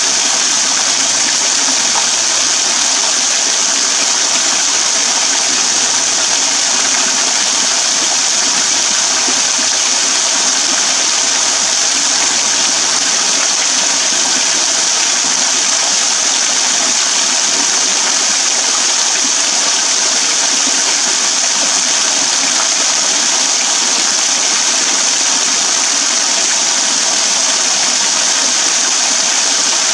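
Thin waterfall pouring off a rock overhang and splashing into a shallow pool: a steady, hissing splatter of falling water that does not change.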